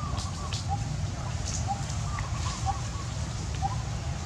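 Outdoor ambience: faint short bird chirps repeating every half second or so over a steady low rumble, with a few light rustles.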